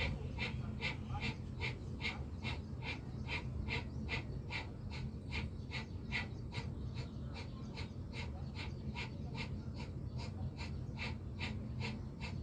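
Bhastrika pranayama: rapid, forceful bellows breathing through the nose, in even puffs of about four a second.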